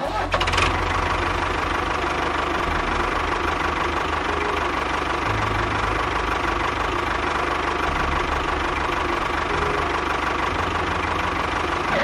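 A small motor-driven machine running steadily, with a fast, low, uneven chugging under a steady whine.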